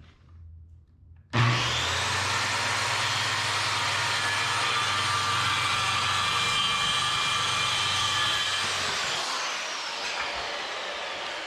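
Electric circular-blade saw switched on about a second in, running and cutting through a half-inch wood sheet, then switched off near the end, its whine falling as the blade spins down.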